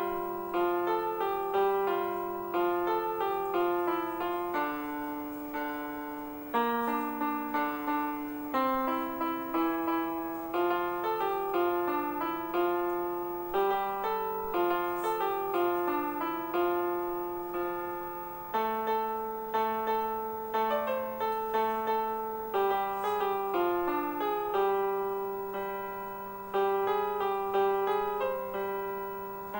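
Background piano music: a gentle melody over a slow accompaniment, each note struck and fading.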